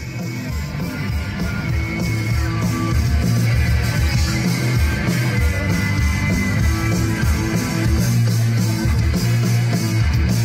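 Live party band playing rock music, with guitar and drums; the volume swells up over the first couple of seconds and then stays loud and steady.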